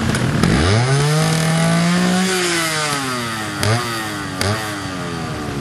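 Trial motorcycle engine revving up sharply, holding high for about a second and a half, then easing off with the pitch falling. Two short throttle blips follow.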